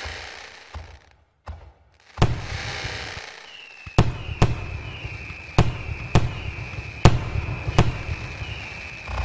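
Fireworks going off: a loud bang about two seconds in, then half a dozen sharp bangs roughly a second apart, with crackling between them. Over the bangs a high whistle keeps sliding down in pitch.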